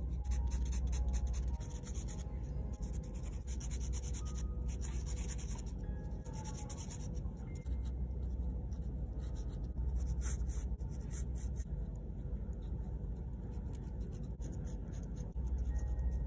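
Steel nib of a Lamy fountain pen scratching across textured watercolour paper in quick hatching strokes, coming in runs of short scratches with brief pauses. Soft background music plays underneath.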